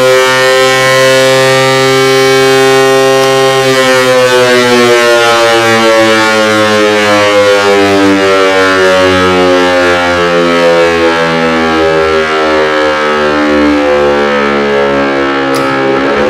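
Low-tone unit of an old L138 three-port electric siren sounding the 'Feueralarm' fire-alarm signal. It holds a steady howl, then about four seconds in the pitch starts to fall slowly and evenly for about twelve seconds as the rotor winds down between blasts. Right at the end it begins rising again for the next blast.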